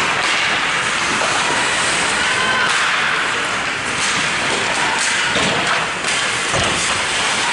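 Ice hockey play heard from beside the rink: a steady hiss of skates on the ice and rink noise, with a dull thump about six and a half seconds in.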